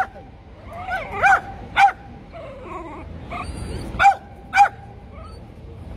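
A dog barking in short, sharp barks that rise and fall in pitch, coming in pairs about half a second apart: one at the start, two a little over a second in, and two more about four seconds in.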